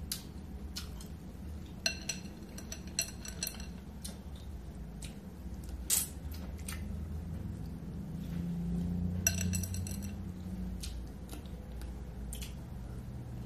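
Close-up eating sounds of a seafood boil: wet lip smacks and slurps on saucy shrimp and mussels, with small ringing clinks of shells against a glass bowl, once about two seconds in and again about nine seconds in. A low closed-mouth 'mmm' hum runs under the second clinks.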